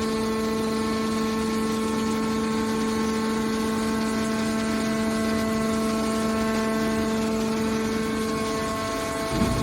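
Hydraulic scrap metal baler's power unit running with a steady, even whine, with a brief rougher noise near the end.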